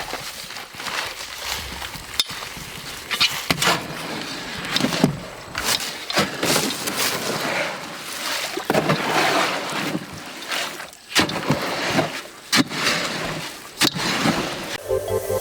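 Wet concrete being mixed and worked by hand, with irregular scraping and several sharp knocks of the tool.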